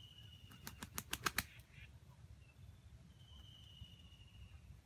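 Junglefowl rooster beating its wings: a quick run of about six sharp wing claps in under a second, starting about half a second in.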